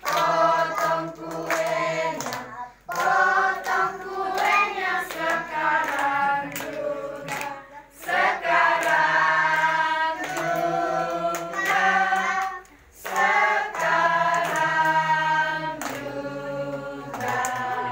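A group of voices singing a birthday song together, with hands clapping along; the singing breaks off briefly three times between phrases.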